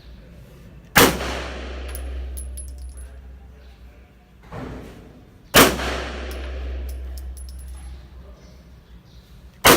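Three single shots from a Glock 19 9mm pistol, spaced about four to five seconds apart, each ringing out in a long echo and followed by short high clinks.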